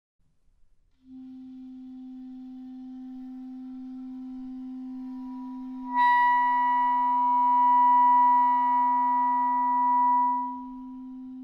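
Clarinet playing a multiphonic. It starts on a steady low note about a second in, and about five seconds in a special fingering with an opened key splits it into a louder chord of several higher tones. Near the end the upper tones fade, leaving the held low note.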